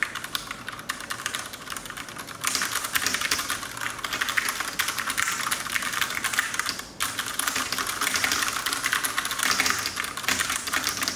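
Fast typing on a mechanical keyboard with Cherry MX Red switches, a dense stream of key clacks. It is lighter for the first two seconds or so, with a brief pause about seven seconds in.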